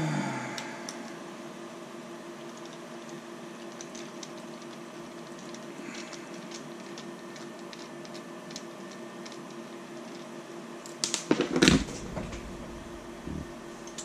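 Faint clicks and ticks of a screwdriver working on small 3D-printed plastic gimbal parts, over a steady low hum. About eleven seconds in comes a louder clatter on the workbench lasting about a second, then a single knock.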